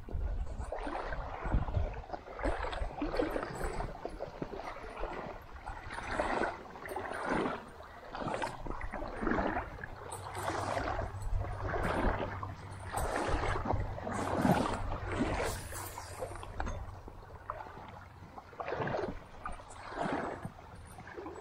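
Legs wading through shallow creek water: a sloshing swish with each stride, about once a second.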